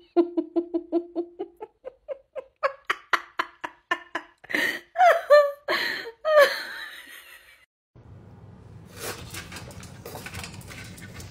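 A person laughing in a quick run of short ha-ha bursts that climb in pitch and build to a few loud laughs, then trail off. After that comes softer rustling with scattered clicks.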